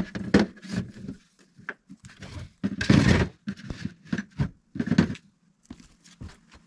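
Irregular scrapes and knocks of hands handling materials, the loudest a longer scraping rush about three seconds in.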